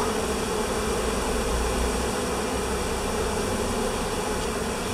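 A honeybee swarm buzzing in a steady, unbroken hum as the cluster crowds into a nuc box through its entrance hole.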